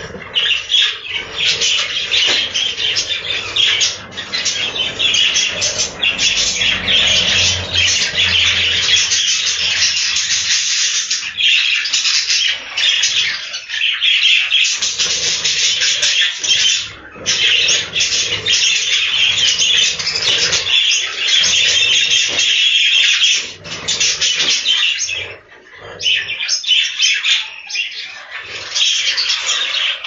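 A large flock of budgerigars chattering and chirping without pause, with wings flapping as birds fly between perches.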